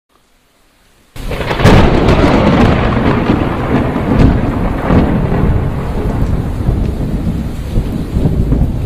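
Thunder: a sudden crack about a second in, then a long rolling rumble.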